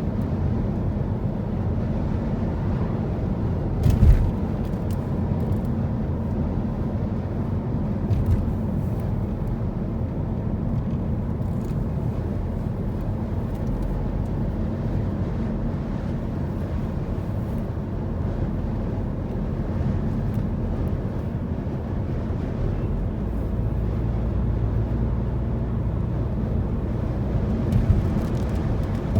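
Steady low rumble of a car being driven, road and wind noise, with a few brief thumps about four, eight and twenty-eight seconds in.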